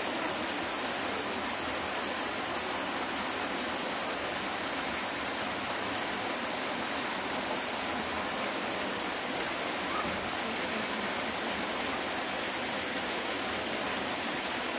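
Steady, unbroken rush of running or falling water, like a small waterfall.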